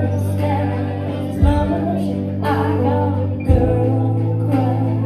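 A woman singing a country song through a microphone over a backing track, its bass note changing about every two seconds.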